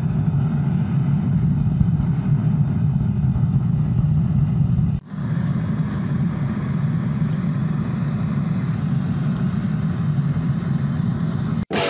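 Homemade propane forge running, its burner giving a steady low roar. There is a brief break about five seconds in, and the roar cuts off near the end.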